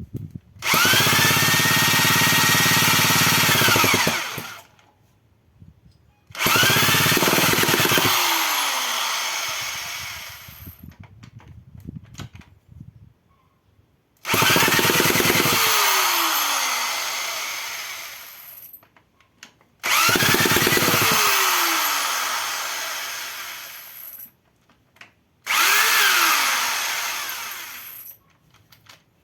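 A handheld electric power tool run in five bursts. Each burst spins up with a rising whine and runs steadily for a few seconds, and most wind down with a falling whine after release.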